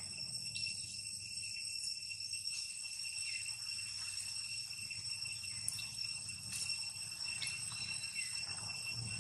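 Steady, high-pitched insect drone, held on a few unchanging tones, with a few faint short chirps and clicks in the middle.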